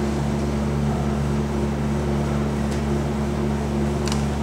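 Steady low mechanical hum made of several unchanging low tones, with a couple of short sharp ticks near the end.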